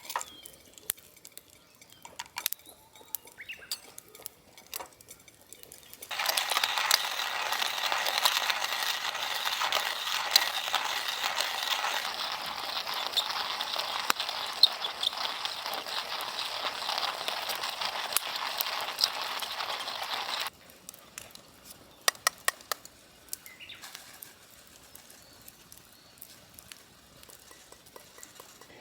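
Wood fire in a fire pit, crackling and popping with scattered sharp snaps. For about fourteen seconds in the middle a much louder, steady rushing hiss full of dense crackle starts and stops abruptly.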